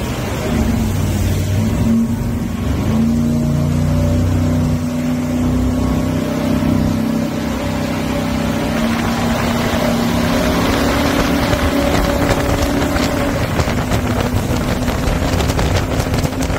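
Jet boat engine running hard at speed with a steady drone. From about halfway the engine tone fades under rushing wind and water noise, with wind buffeting the microphone near the end.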